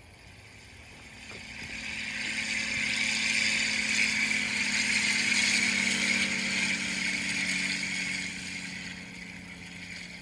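An engine passing by. Its hum swells over a few seconds, holds, then fades, dropping slightly in pitch as it goes.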